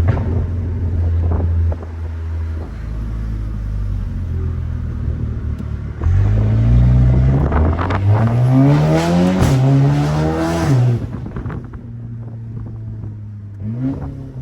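2019 Audi S3 8V's turbocharged 2.0-litre four-cylinder through a custom valved exhaust: a steady low drone, then about six seconds in a hard acceleration with revs climbing, dropping once at an upshift and climbing again before the throttle comes off near eleven seconds. A short rev blip follows near the end.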